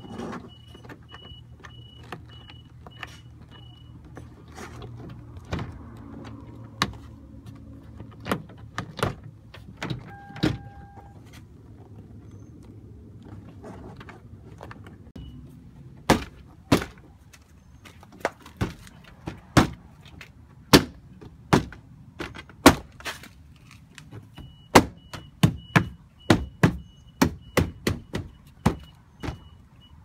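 A Lexus front-door trim panel being pressed and knocked into place by hand, its retaining clips snapping into the door: a run of sharp knocks about one a second from about halfway, coming quicker near the end. A faint repeated high beep sounds at the start and again near the end.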